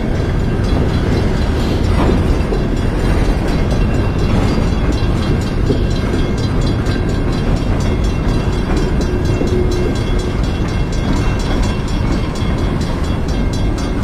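CSX coal hopper cars rolling past at close range: a steady, loud rumble of steel wheels on rail, with a faint steady high whine over it.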